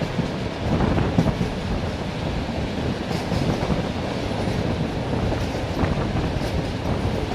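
Train wheels running on the rails: a steady rolling rumble, broken by a few sharp clicks as the wheels pass over rail joints.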